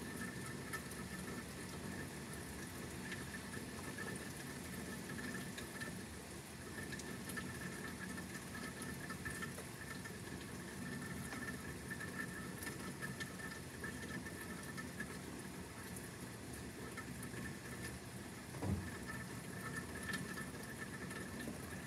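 Rain pattering steadily during a thunderstorm, with one brief low thump about nineteen seconds in.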